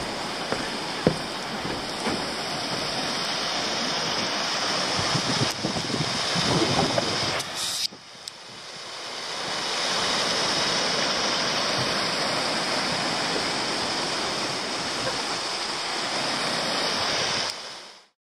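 Steady rushing of wind and rain, with gusts knocking on the microphone in the first half. The rush breaks off about eight seconds in, fades back up, and cuts out just before the end.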